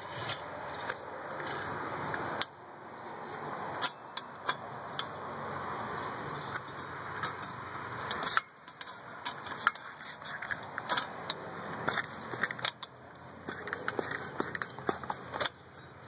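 Light metallic clicks and rattles of a camp stove being handled, scattered irregularly over a steady background hiss.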